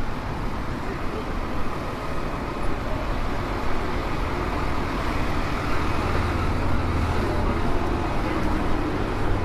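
Diesel engine of a stopped tour coach idling, with a steady low hum over general street traffic noise; the engine hum grows louder about six seconds in.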